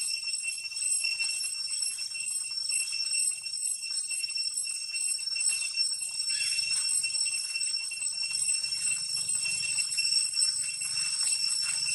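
Cicadas droning in one high, steady buzz, with a faint low rumble underneath.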